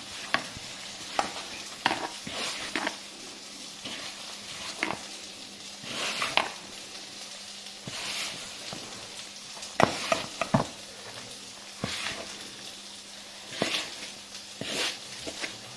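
Hands mixing puri dough, flour with blended spinach puree, in a bowl: a soft steady rustle with irregular knocks and clinks against the bowl.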